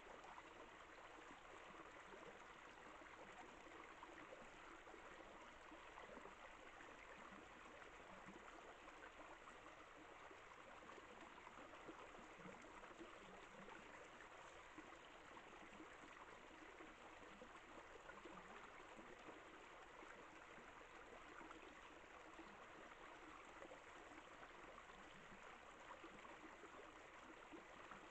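Near silence: a faint, steady hiss with no distinct sounds standing out.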